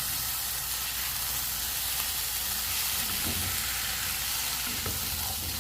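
Frying pan sizzling steadily as boiled potatoes are added to butter, onion and garlic and stirred, with a few faint knocks of the utensil.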